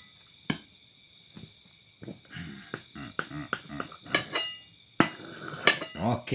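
Scattered sharp clicks and knocks of objects being handled, over a steady high insect trill from crickets.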